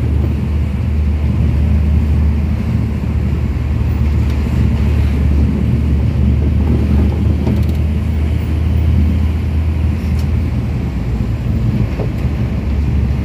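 Vehicle engine running steadily on the move, heard from inside the cab as a constant low rumble with road and wind noise.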